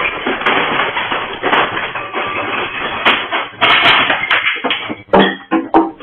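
Loud, continuous rattling and crashing of objects shaken by an earthquake, with many sharp knocks; near the end it breaks into a few separate knocks.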